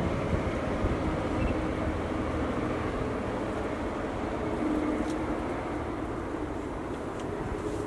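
A train running along the line: a steady rumble of wheels on rails that eases slightly.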